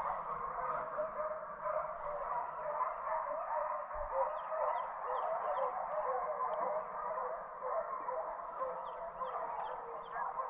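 A pack of hunting hounds baying and yelping together, a continuous chorus of many overlapping voices.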